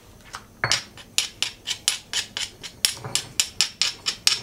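Quick, sharp knocking of a utensil against a stone mortar, about four to five knocks a second, starting about half a second in, as a chili and shrimp-paste dip is worked inside it.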